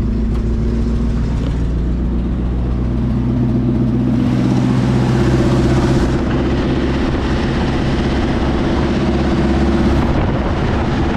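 An old car's engine idling steadily, a little louder from about four to six seconds in. The engine runs with a leaking fuel pump, which pours gasoline when it runs.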